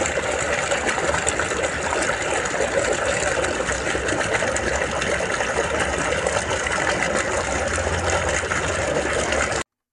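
Water gushing from a large pipe outlet and splashing steadily onto the surface of a pond, with a low steady hum underneath. It cuts off suddenly near the end.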